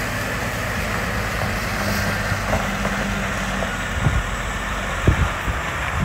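Scania R480 8x4 hooklift truck's inline-six diesel engine running steadily as the truck drives slowly away at low speed, with a few brief low thumps near the end.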